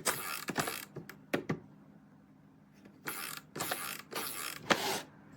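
Plastic Kitchen Safe timer-lock container being worked at its locked lid: a series of short plastic creaks and clicks, a few at the start, then four in quick succession near the end.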